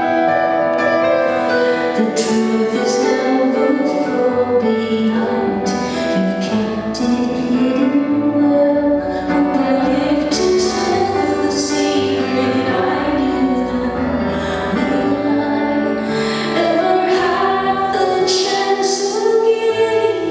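A woman sings a slow ballad live with her own piano accompaniment.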